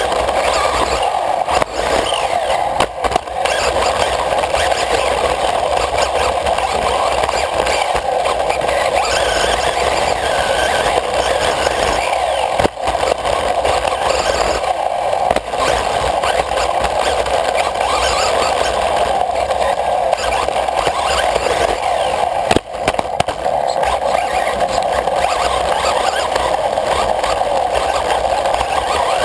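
Onboard sound of a Losi radio-controlled off-road buggy running laps on a dirt track: a steady, loud whirr of drivetrain and tyres heard from a camera mounted on the car. A few sharp knocks break it, with brief dips in the running noise.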